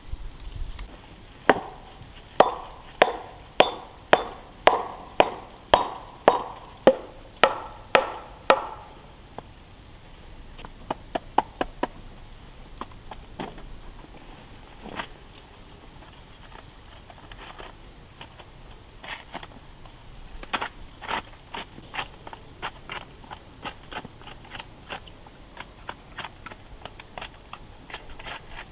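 Footsteps crunching in snow: a steady walk of a little under two steps a second for the first several seconds, then slower, scattered crunches and small clicks.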